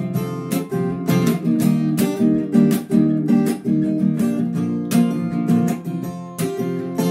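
Acoustic guitar with a capo, chords strummed in a steady rhythm as the instrumental introduction to a song.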